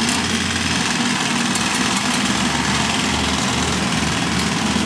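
Small gasoline engine of a powered reel lawn mower running steadily.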